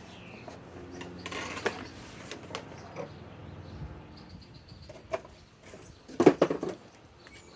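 Unpacking a cordless impact wrench from its box: rustling packaging and handling clicks and knocks, with the loudest burst of noise about six seconds in.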